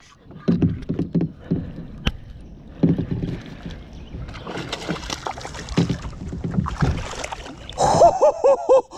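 Knocks and water splashing around a kayak while a bass is fought and brought aboard, with a short excited yell near the end.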